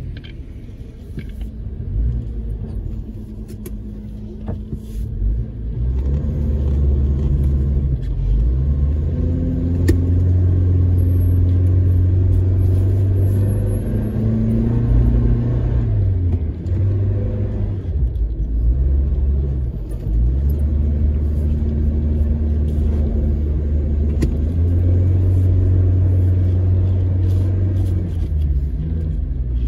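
SUV engine heard from inside the cabin while driving over sand dunes: a low drone that gets louder about six seconds in, then rises and falls in pitch several times as the driver accelerates and eases off.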